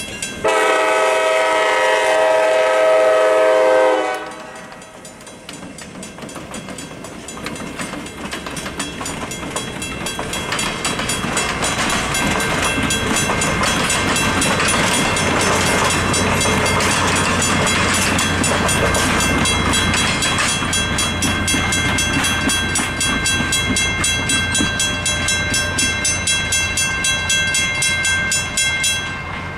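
Diesel locomotive air horn sounding one long blast that stops about four seconds in, then the train's passenger cars rumbling and clacking past over the grade crossing while the crossing bell rings steadily. The sound drops off sharply near the end.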